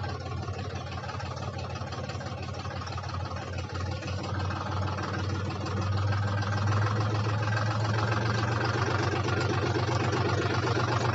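Deutz-Fahr Agrolux 45 tractor's 3000 cc diesel engine running steadily as the tractor drives along pulling a rear cultivator. The engine grows louder about halfway through as the tractor comes closer.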